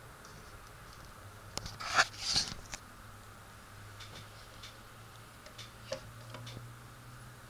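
Handling noise: a cluster of rustles and sharp clicks about two seconds in, followed by a few lighter scattered ticks, over a low steady hum.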